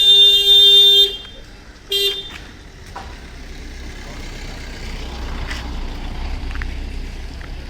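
A vehicle horn gives one long toot and then a short toot about two seconds in. After that a low rumble builds up.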